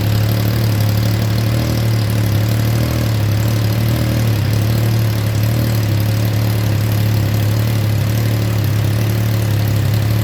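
Triumph Trident 660's inline three-cylinder engine idling steadily through a modified (kalkal, opened-up) stock muffler, with a deep exhaust note that is not that loud. The muffler's fiber packing is still wet.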